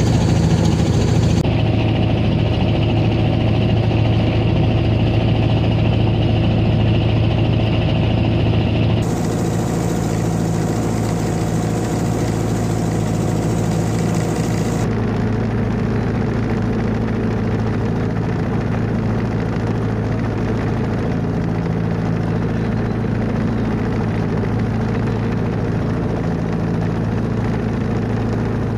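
Engine running steadily with a low, even hum; the sound changes abruptly a few times, about 9 and 15 seconds in, as one stretch of engine noise gives way to another.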